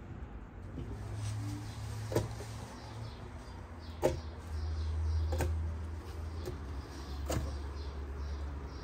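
Watermelon chunks dropped by hand into an empty plastic blender jar, landing with a few short knocks a second or two apart, over a low steady hum.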